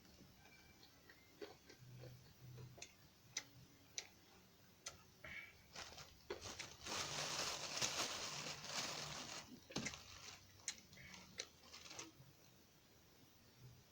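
Close-up eating sounds of a person chewing tofu and bird's eye chilies: scattered small clicks and mouth smacks, with one louder noisy stretch lasting about two and a half seconds past the middle.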